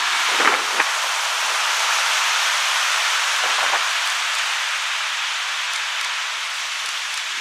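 Heavy ocean surf: broken waves and foaming water hissing steadily, with a couple of short, sharp splashes about half a second in and a softer one near the middle.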